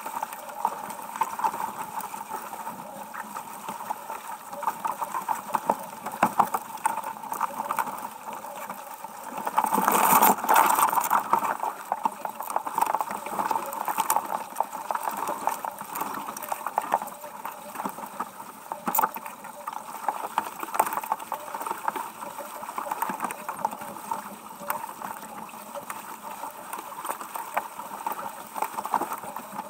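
Water rushing and splashing along the hull of a Ridas 26 keelboat sailing heeled over, with a louder surge of rushing noise about ten seconds in.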